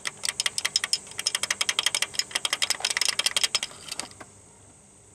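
A small hand tool scraping and tapping against the engine block as it probes a sludge-filmed coolant passage in the deck: a quick, irregular run of metallic clicks for about four seconds that stops near the end.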